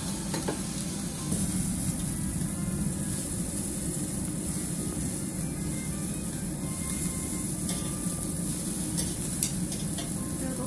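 Beef sizzling on a yakiniku grill, a steady hiss that grows louder about a second in, with a few light clicks near the end.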